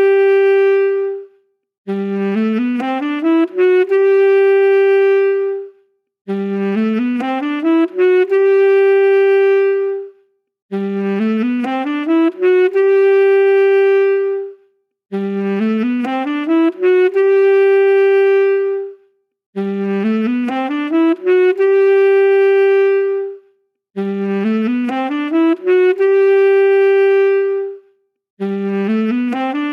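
Saxophone playing the same short phrase over and over: a quick rising run of notes up to a held note, repeated about every four and a half seconds with a brief silence between repeats.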